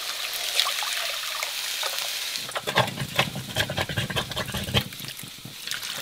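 Chicken broth poured from a jar into a pot of sautéing onions, a steady pouring splash. About two and a half seconds in it gives way to canned potatoes and carrots tumbling out of glass jars into a metal colander in a sink: a quick run of wet plops and clatters as their liquid drains off.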